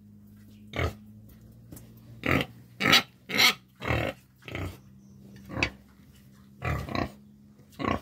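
Pigs grunting in short bursts, about ten in all, spaced roughly half a second to a second apart.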